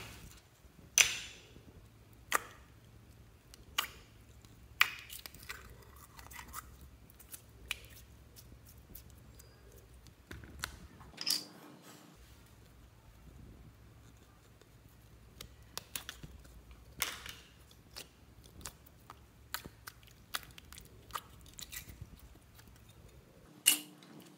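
Sticky slime being pressed and squished by hand in a plastic box, giving scattered sharp clicks and short wet, crackly pops at uneven intervals.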